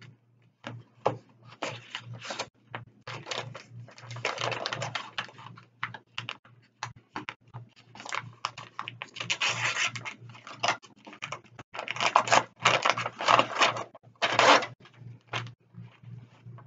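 Paper rustling and shuffling as a sealed bid is opened and its pages leafed through on a tabletop, in irregular crinkling and scraping bursts that are loudest a couple of seconds before the end.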